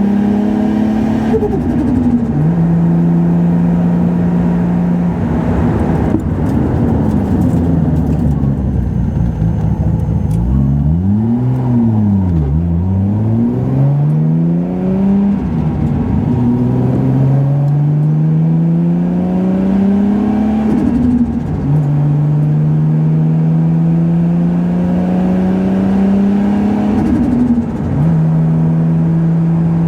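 Nissan Skyline R32 GT-R's stroked RB26 inline-six with a big single turbo, heard from inside the car under light acceleration. Its pitch holds steady at cruise, dips and climbs twice in the middle, rises slowly through a gear for several seconds, then drops sharply as the throttle lifts or a gear changes, a few times over.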